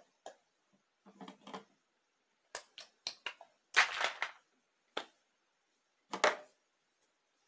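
Small plastic toy bowl knocking and clattering against a plastic bucket lid as it is handled and set down: a string of short, sharp clicks, the loudest cluster about four seconds in and another knock just after six seconds.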